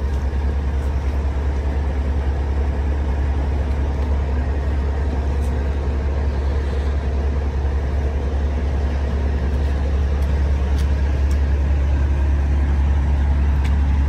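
Heavy truck's diesel engine idling: a steady low drone.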